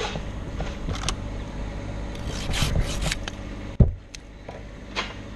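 Close-up rubbing and scraping from a tree climber moving on the trunk, with scattered clicks. One sharp knock about four seconds in is the loudest sound.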